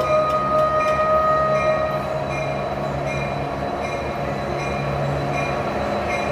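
Train horn sounding for the first two seconds, then the steady rumble of a passing train, with a short high ding repeating a bit faster than once a second.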